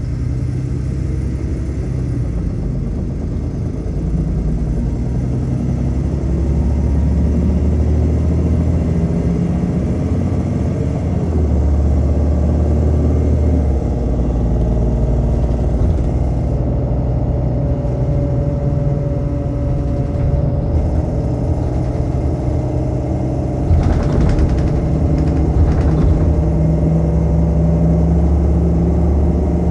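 Diesel engine and ZF Ecolife automatic gearbox of a MAN Lion's City LE city bus heard from inside the passenger cabin while driving. The engine note steps up and down several times as the gearbox changes gear, with a couple of brief knocks or rattles near the end.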